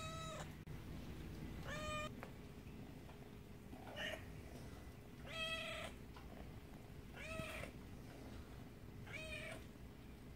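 Tabby kitten meowing repeatedly: six short meows about every two seconds, each rising then falling in pitch.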